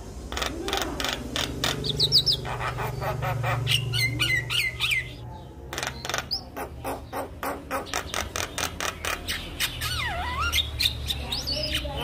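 Javan myna singing: long runs of sharp, rapid clicks mixed with quick rising whistled sweeps, and a long swooping whistle that dips and climbs again about ten seconds in.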